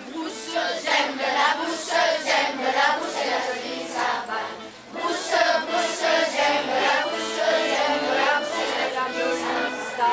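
Children's choir singing together, accompanied by an accordion holding steady chords beneath the voices. The singing breaks off briefly about halfway through, then comes back in.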